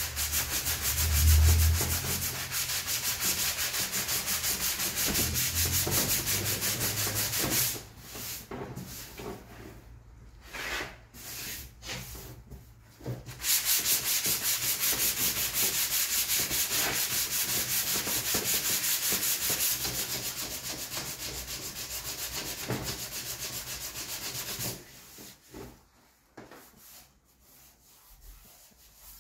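Sandpaper on a hand sanding pad rubbed in quick back-and-forth strokes over a plastic Yamaha TZR250 fairing panel, a dry scratchy rasp. The sanding breaks off into short, scattered strokes for a few seconds about a third of the way in, and again near the end.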